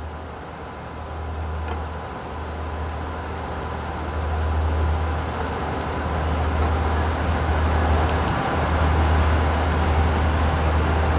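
Steady rushing roar of running cooling fans and air handling, getting louder about four seconds in, over a low rumble, with a couple of faint clicks.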